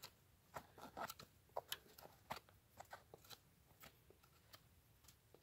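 Benchmade Puukko stainless-steel knife carving a wooden stick: several faint, irregular crunching cuts as the blade takes chunks out of the wood, thinning out over the last second or so.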